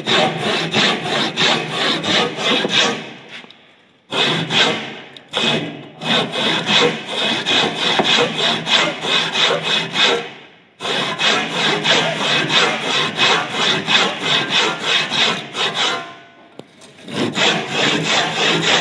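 Hand saw cutting across a wooden board in steady back-and-forth strokes, about two a second, stopping briefly three times. It is sawing the sides of a groove down to a marked depth.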